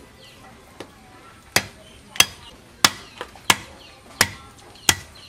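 Raw goat meat being chopped with a blade on a wooden log block: six sharp chops at a steady pace, about two-thirds of a second apart, starting about a second and a half in.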